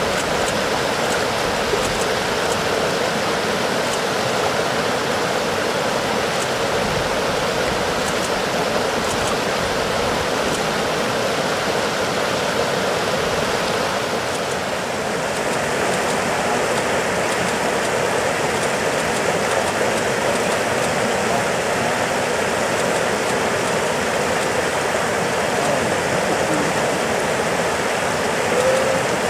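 Water rushing steadily over a weir and the rocks below it. About halfway through, the rush turns a little duller.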